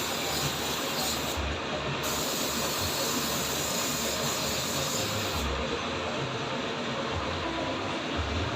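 Automotive paint spray gun hissing steadily as paint is sprayed onto a front bumper.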